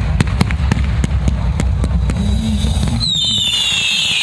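Consumer fireworks going off: a quick string of sharp bangs, several a second, over a dense low rumble. About three seconds in, a loud high whistle sliding down in pitch takes over.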